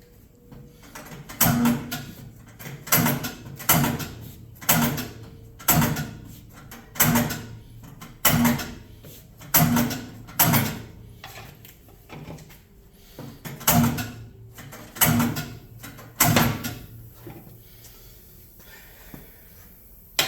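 About a dozen heavy strikes, roughly one a second with a short pause partway, ringing briefly after each: a mallet or hammer beating a tight motorcycle tire bead down over the rim while it is mounted on a tire changer.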